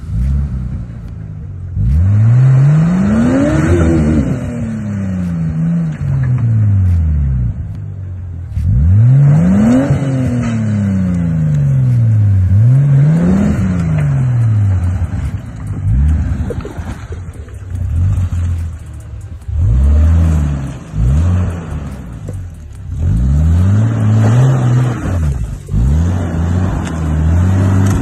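Nissan Patrol's RB25DET Neo turbocharged straight-six revving up and backing off again and again: three long climbs and falls in pitch, then shorter, quicker blips in the second half.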